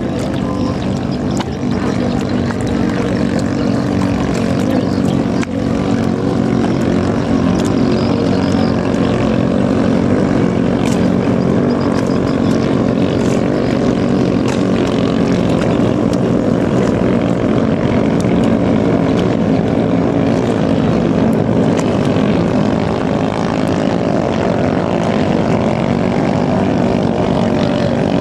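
The small 6–7 hp longtail engine of a ketinting racing boat running at full throttle, a steady loud drone that holds without a break.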